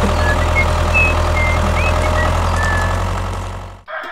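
Heavy truck engine running steadily at a low rumble, laid over the picture of a toy truck as a sound effect, with short high chirps over it. It fades and cuts off just before the end.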